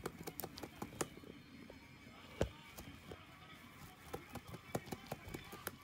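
A rabbit nibbling and biting at the rim of a woven straw hut: an irregular string of sharp crunchy clicks, with one louder snap about two and a half seconds in.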